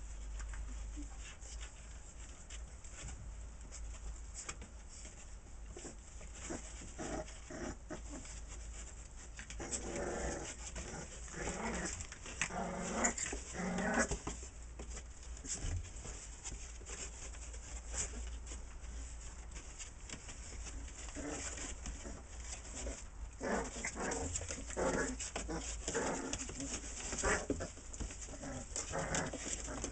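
Blue-nose pit bull puppies, about four weeks old, giving short, high cries in bursts as they wrestle. The calls come thickest about ten to fourteen seconds in and again from about twenty-one seconds on.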